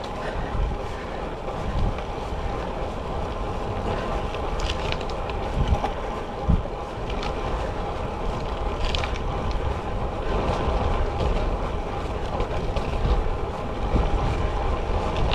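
Wind rushing over the microphone and road noise while a road bike is being ridden, steady throughout with a few small clicks.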